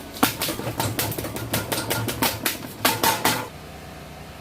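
Rapid, irregular clicking and knocking for about three seconds from hand work on the mini bike's metal parts during disassembly, stopping abruptly.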